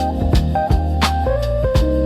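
Lofi jazz instrumental music: a warm, sustained bass line under mellow melodic notes, with light drum hits keeping a steady beat.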